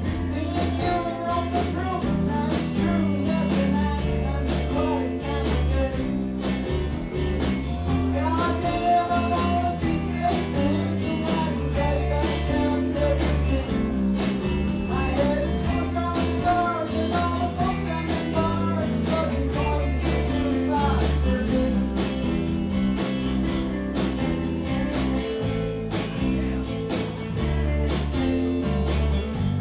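Live rock band playing, with electric guitars, bass guitar and drums. A bending lead melody rides on top for the first two-thirds, then drops away, leaving the band's backing.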